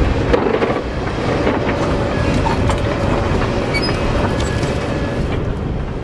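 Pine forest wildfire burning: a loud, steady rumble with scattered crackles and pops.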